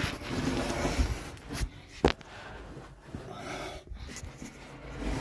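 A caver breathing and his clothing and gear rustling and scraping against rock as he moves through a tight cave passage, with a few sharp knocks, the loudest about two seconds in.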